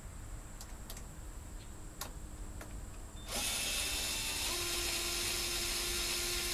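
A few faint clicks, then about three seconds in a small power screwdriver starts and runs steadily with a high whine, driving a screw.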